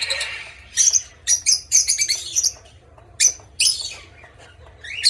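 Small parrots in an aviary flight, lovebirds and a parrotlet, chirping: a string of short, high-pitched chirps, several close together near the start and a few more toward the end.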